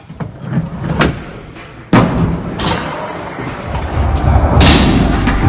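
Skateboard knocks and slaps, the loudest about two seconds in, then from about four seconds the rumble of skateboard wheels rolling, with another knock near the end.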